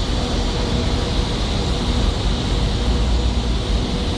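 Airliner jet engines running, a steady deep rumble with a faint droning hum.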